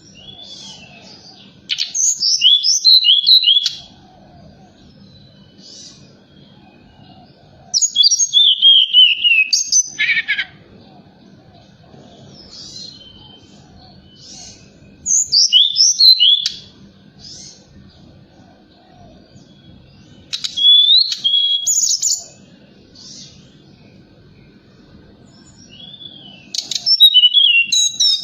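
Tledekan gunung singing five short phrases of quick, high whistled notes that fall in pitch, each about two seconds long with several seconds of pause between them. It is a lure song used to provoke caged birds into answering and singing.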